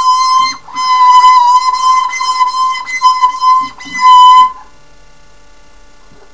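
Guitar string squealing as a cloth with lemon oil is rubbed along it: a loud, piercing squeal held at one steady pitch over several strokes, stopping about four and a half seconds in.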